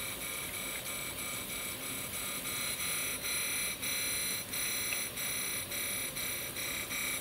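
Brown & Sharpe No. 1 cylindrical grinder running a grinding pass on a workpiece: a steady high-pitched whine of several tones that dips briefly about twice a second.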